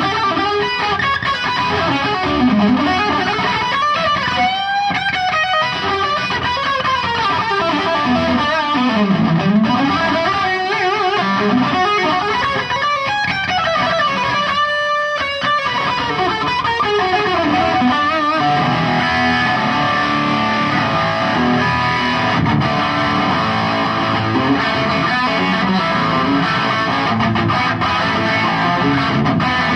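Electric guitar played through distortion and effects pedals, with notes sliding and bending in pitch; after about eighteen seconds the playing turns fuller and steadier.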